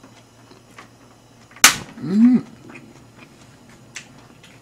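One sharp click about a second and a half in, followed by a short voiced 'hm?' from a person; otherwise faint small clicks and ticks.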